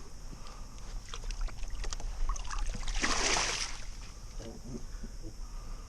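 Kayak being worked through shallow water and mud: scattered light knocks and clunks against the hull, with one louder splash of water about three seconds in.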